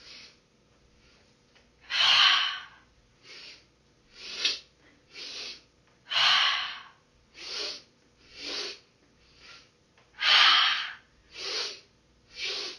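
Breath of joy pranayama: three short audible in-breaths in quick succession, then a long, forceful exhale out through the mouth as the body folds forward, the cycle repeating about every four seconds. The exhales are the loudest sounds, three of them.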